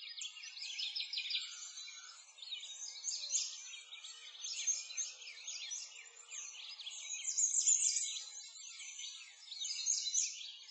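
Dense chorus of small songbirds, many quick high chirps and twitters overlapping continuously, with nothing low underneath.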